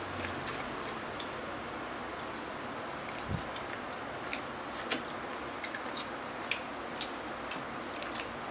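Someone eating noodles with chopsticks: soft chewing and mouth sounds with many small scattered clicks over a steady hiss, one sharper click about five seconds in and a dull bump a little over three seconds in.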